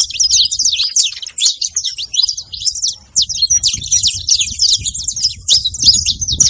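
Several saffron finches chirping together in a dense, continuous chatter of quick, high, overlapping notes and short sweeps.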